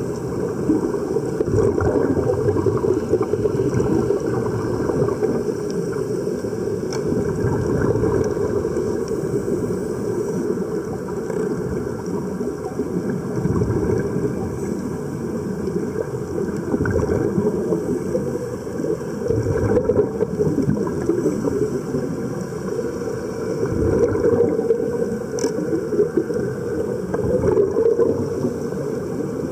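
Steady, muffled underwater rumble with bubbling from air venting out of sea-walking dive helmets fed by surface air hoses.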